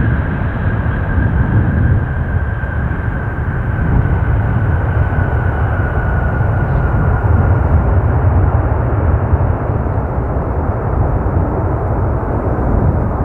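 A jet airliner going past, its engines a heavy rumble under a high whine that slowly falls in pitch.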